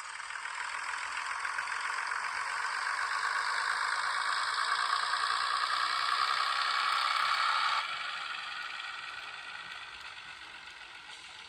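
Sound-fitted N gauge Class 101 DMU model running on the track, its onboard sound decoder playing the diesel unit's running sound over the mechanism's noise. It grows louder for several seconds, drops sharply about eight seconds in, then fades away.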